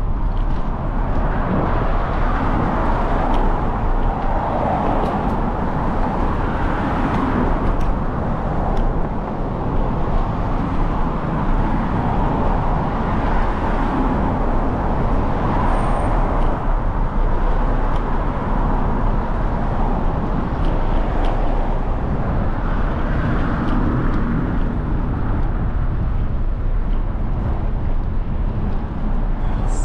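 Steady rush of wind and road noise from a moving bicycle, with a constant low rumble and no clear breaks.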